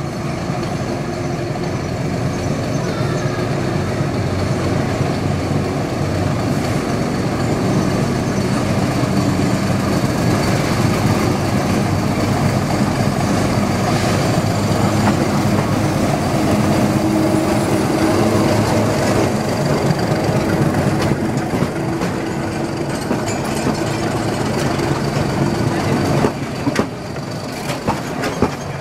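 Former Indian YDM-4 class Alco diesel-electric locomotive (Myanmar Railways DF class) running under power as it pulls a train slowly past. Its engine note grows louder as it approaches. Near the end the coaches roll by, their wheels clicking over the rail joints.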